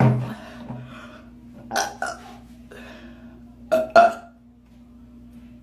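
A woman burping loudly on purpose: a deep burp right at the start, then shorter pairs of sounds about two and four seconds in, the loudest near four seconds.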